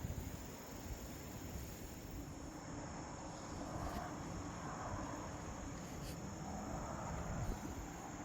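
Crickets chirping steadily in a continuous chorus, with a low rumble of background noise beneath.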